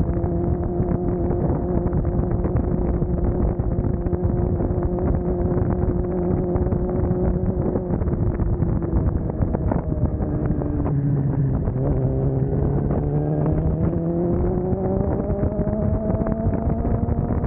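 Suzuki GSX-R750 inline-four engine running under way, with wind noise. The engine note holds steady, drops about halfway through as the bike slows, then rises steadily as it accelerates again.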